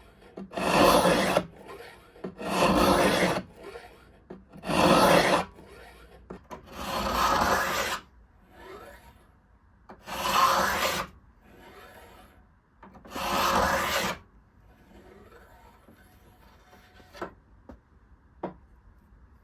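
Hand filing: about six long, rasping push strokes of a file, roughly two seconds apart, with fainter return strokes between them. The filing stops about two-thirds of the way through, and a couple of light clicks follow near the end.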